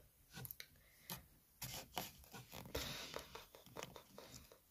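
Faint rustling and rubbing with scattered soft clicks, the handling noise of a phone held in the hand.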